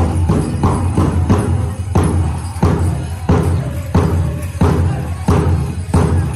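Powwow drum group singing over a big drum struck in a steady, even beat of about three strokes every two seconds; the drumming stops at the very end.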